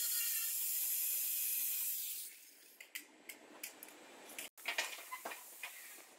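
Angle grinder with an abrasive disc grinding paint off a car's rear quarter panel and sill: a steady hiss that stops about two seconds in. After it, soft scattered clicks and taps.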